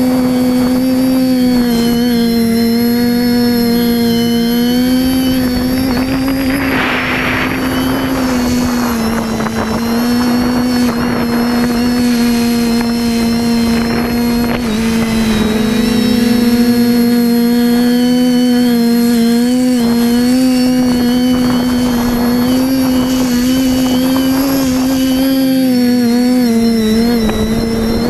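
TBS Discovery Pro quadcopter in flight, heard from its onboard camera: the steady buzzing whine of its 1000KV brushless motors and propellers, wavering slightly in pitch as the throttle changes. Brief gusts of wind noise on the microphone come and go.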